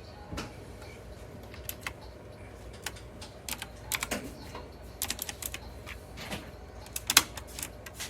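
Keys of an RK Royal Kludge S108 mechanical keyboard with clicky blue switches being pressed: scattered single keystrokes and short runs of clicks, not steady typing.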